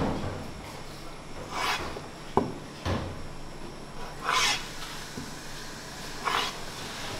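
A gloved hand scraping and tossing a heap of chopped onion, pepper, spice and walnuts across a cutting board. There are several rasping swishes about every two seconds, and a sharp knock a little over two seconds in.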